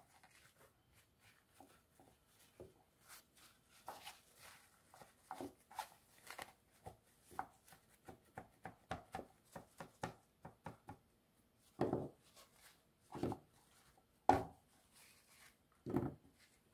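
Paper kitchen towel crinkling and rustling as peeled fresh ginger pieces are patted dry on a plastic cutting board, with light taps. Later come about four louder knocks, roughly a second apart.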